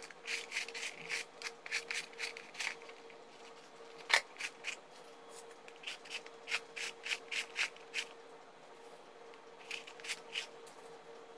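Electrical cord sliding and rubbing against a plastic extension-board cable reel as it is wound on by hand: runs of short scraping strokes, several a second, broken by pauses.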